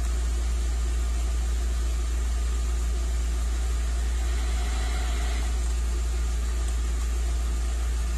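Volkswagen Beetle's engine idling, heard inside the cabin as a steady, even low drone.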